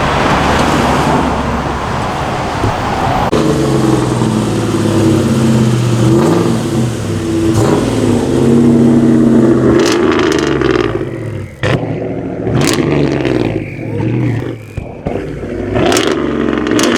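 A car engine revving, its pitch rising and falling several times, after a few seconds of louder rushing noise. A few sharp cracks come in the second half.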